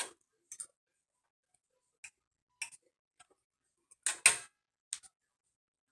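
Irregular sharp clicks and taps of small hard parts and tools being handled during iPad reassembly, the loudest a quick double knock about four seconds in.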